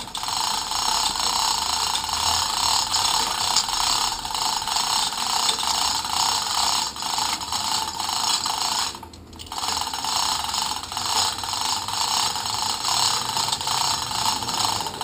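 Manual chain hoist on an engine crane clicking rapidly and continuously as its chain is worked to lower a boat's inboard engine, with one short pause about nine seconds in.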